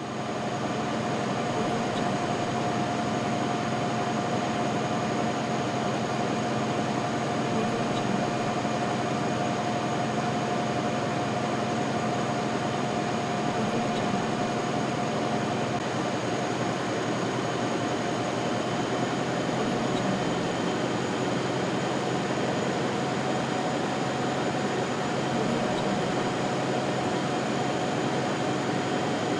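Newspaper printing presses running steadily: a dense, even mechanical clatter with a constant whine, and faint ticks about every two seconds.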